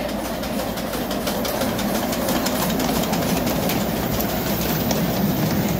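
A 10¼-inch gauge miniature steam locomotive and its train running past close by, a steady mechanical clatter with a quick run of clicks from the wheels and running gear.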